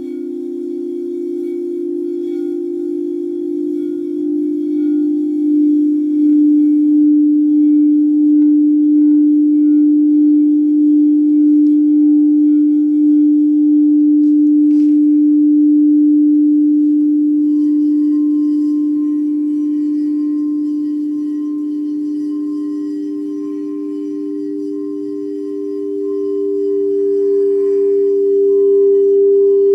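Frosted quartz crystal singing bowls ringing in long, overlapping sustained tones with a slow wavering pulse. A second, higher bowl comes in a little past halfway and swells to match the first near the end.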